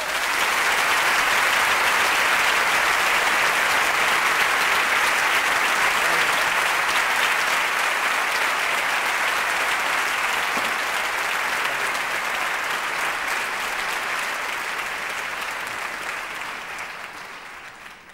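Concert audience applauding steadily, the applause dying away over the last few seconds.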